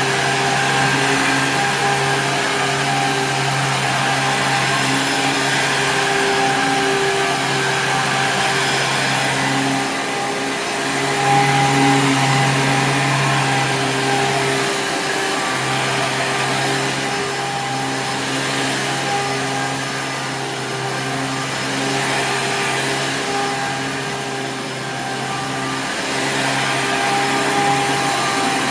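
A 2002 Hoover Sprint U5068-900 upright vacuum with a 12-amp motor running steadily: a humming whine over air rush, its level dipping and swelling a few times.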